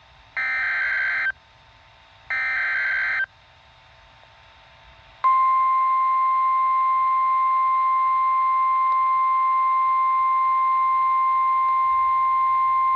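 NOAA Weather Radio emergency alert signal: two short, buzzy SAME digital header bursts about a second apart, then about 5 s in the steady 1050 Hz warning alarm tone starts and holds, signalling that a warning is about to be read.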